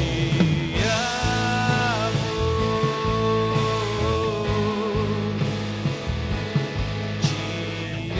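Live worship band playing an instrumental passage between sung lines: a held melody line that slides between notes and wavers, over a steady low bass.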